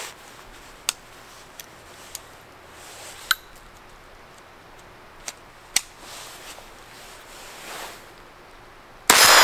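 Kel-Tec CP33 .22 pistol being cleared of a stovepipe jam: a scattering of sharp metallic clicks and clacks from its action over several seconds. Near the end, a single loud shot with a ringing tail as firing resumes.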